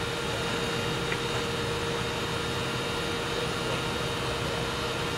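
Tractor engine running steadily, with a constant whine over the drone.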